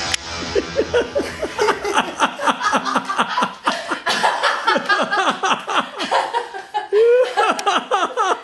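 Hearty laughter in quick repeated bursts, with one longer rising cry about seven seconds in.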